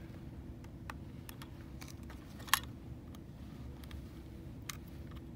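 Small, scattered clicks and taps of metal tweezers working against the plastic case of a Philips DigiTrak XT Holter monitor as its rubber grommets are pried out, with one sharper click about two and a half seconds in.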